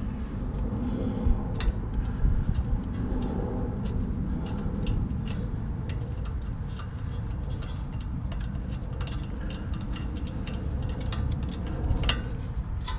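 Socket ratchet clicking in quick, uneven runs of small ticks as a 12 mm bolt holding the brake-line bracket is backed out.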